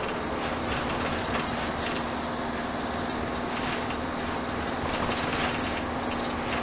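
Camping-car cab while driving: steady engine hum and road noise, with a few light knocks and rattles.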